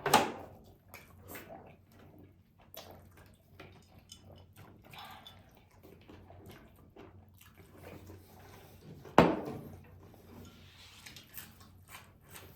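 Close-miked eating of meatballs and rice: wet chewing with a steady scatter of small mouth clicks and smacks, and two louder sudden mouth sounds, one at the very start and one about nine seconds in.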